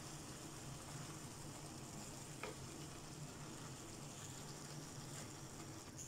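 Cauliflower and shredded cabbage stirred and tossed with a wooden spatula in a non-stick wok, with a soft steady sizzle of the spiced vegetables cooking. There is a low steady hum underneath, and one light tap of the spatula on the pan about two and a half seconds in.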